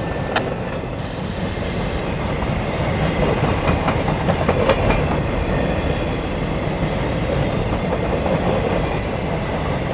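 Empty Railbox boxcars of a freight train rolling past: steady wheel-on-rail rumble and rattle with clickety-clack from the trucks, and a sharper clank about half a second in and again near five seconds.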